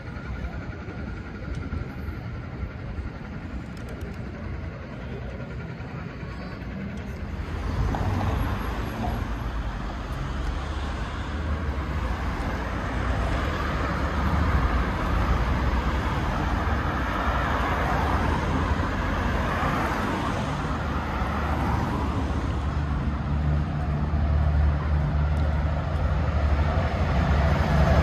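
Quieter open-air street ambience for the first several seconds, then steady city traffic noise of cars passing on a street, with a city bus's engine running close by near the end.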